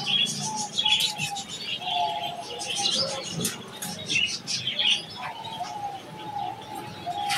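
Aviary of caged pied diamond doves: soft, short cooing notes repeat again and again, mixed with many brief high chirps.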